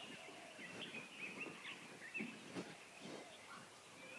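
Faint birds chirping, with many short high chirps scattered through, over a quiet background.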